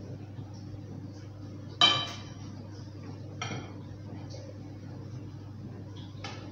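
A wire whisk strikes a large ceramic mixing bowl with a sharp clink that rings briefly, about two seconds in, followed by a softer ringing clink a second and a half later and a light tap near the end, over a steady low hum.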